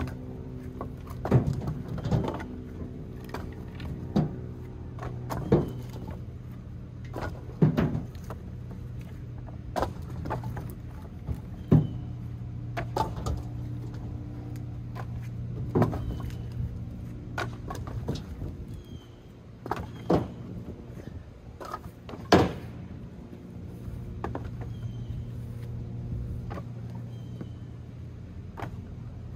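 Split firewood pieces knocking against each other as they are handled and stacked, a sharp wooden knock every second or two, over a steady low engine hum.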